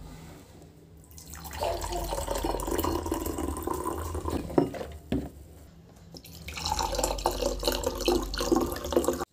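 Water running from a tap into a sink in two spells of a few seconds each, with a couple of short knocks between them.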